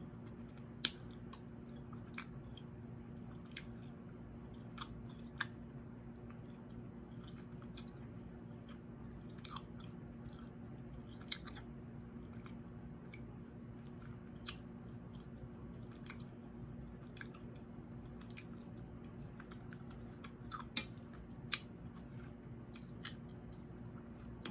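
A person chewing and sucking on candy with their mouth closed, with scattered wet mouth clicks and smacks over a faint steady low hum.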